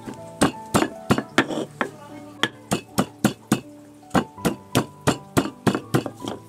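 Stone pestle pounding shallots and garlic in a stone mortar (Indonesian cobek and ulekan): sharp stone-on-stone knocks about three a second, with a short pause a little after two seconds in, over soft background music.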